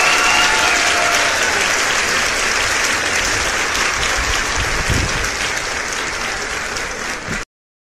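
Crowd applauding steadily, with a few cheering voices in the first second, easing slightly and then cutting off suddenly about seven and a half seconds in.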